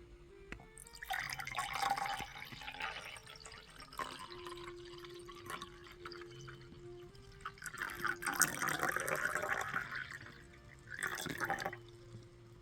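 Water running or splashing in three bursts, the second the longest, over soft background music.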